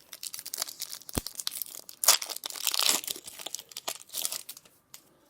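Foil wrapper of a Pokémon TCG Brilliant Stars booster pack being torn open and crinkled by hand, a dense run of crackling and rustling, with one sharp knock about a second in.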